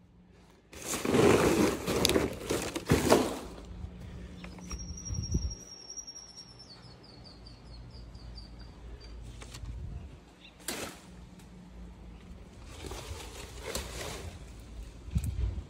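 Several bursts of rustling, crunching noise among dry palm fronds, the loudest just after the start and another group near the end. A bird sings in the middle: one high whistled note, then a quick falling series of notes.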